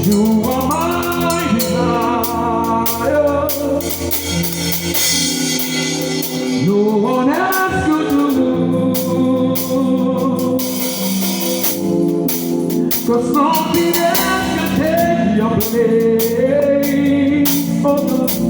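Live gospel worship band playing a slow groove: sustained organ chords under drums and cymbals, with a voice singing gliding melodic lines over them.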